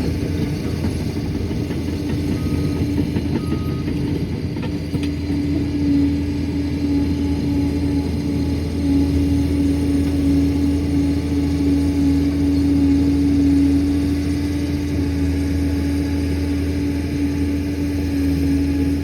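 Liebherr PR 746 crawler dozer's diesel engine running steadily: a low drone with a steady whine on top, swelling slightly in loudness partway through.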